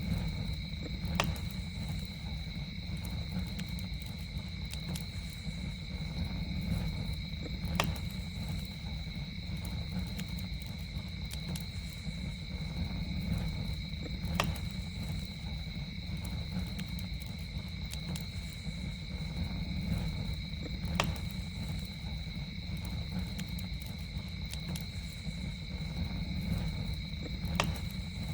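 Campfire burning with a low steady rumble and a sharp pop about every six or seven seconds, over a steady high-pitched drone of night insects.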